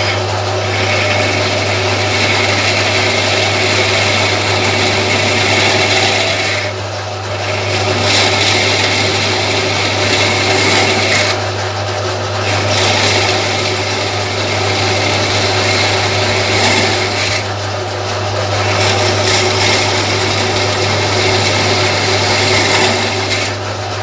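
Lathe running with a steady hum while a spinning pink ceramic grinding point is trued against a scrap carbide insert: a continuous abrasive grinding hiss that drops away briefly three times.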